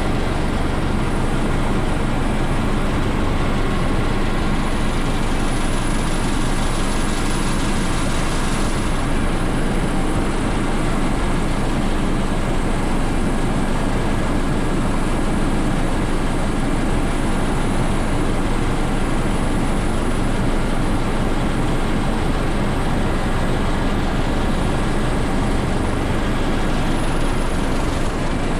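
Coast Guard helicopter's engine and rotor noise, loud and steady throughout.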